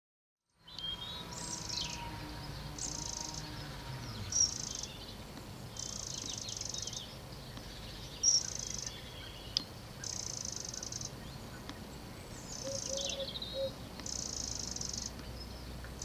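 Small woodland birds calling: a high, dry, buzzy call about a second long, repeated every second or two, with softer chirps and a few sharp tweets between.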